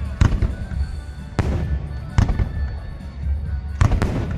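Aerial fireworks shells bursting: about five sharp bangs at uneven intervals, two of them close together near the end, over a steady low rumble.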